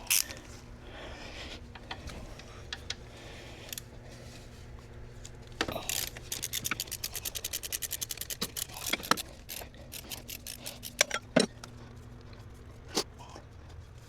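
Hand ratchet clicking as a bolt is turned out: a quick, even run of clicks, about eight a second, for a couple of seconds midway, with scattered single clicks and small metal knocks of the socket and tools around it.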